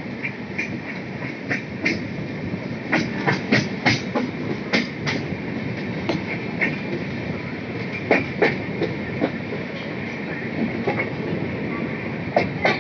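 Express train coaches rolling slowly, the wheels clacking in quick pairs and clusters over a steady running rumble.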